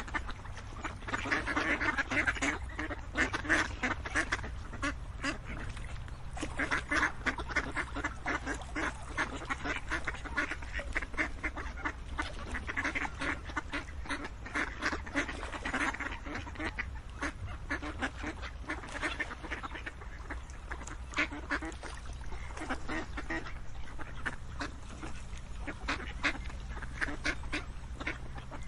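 A flock of ducks quacking continuously, many quick overlapping quacks with louder bouts every few seconds, over a steady low rumble.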